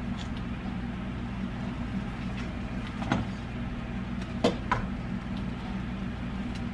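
A steady low hum, with three sharp clicks of a chef's knife knocking on a small cutting board as jalapeños are cut and seeded: one about three seconds in and two close together about a second later.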